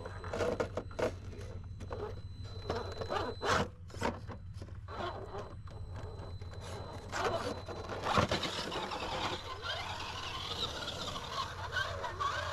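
A radio-controlled rock crawler grinding against a boulder, its tyres and chassis scraping and clicking on the rock in a string of short, sharp scrapes for the first eight seconds or so. After that the sound becomes a more even rustle as it drives off across the grass.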